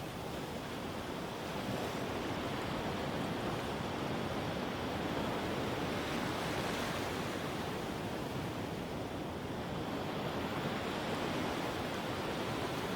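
Medium surf breaking and washing over sand in a steady rushing wash. The hiss swells briefly about halfway through as a wave runs up.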